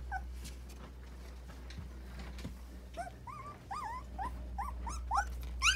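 Young husky puppies whining and squealing, a quickening run of short, high cries that rise and fall in pitch, starting about halfway through: hungry puppies crying to nurse.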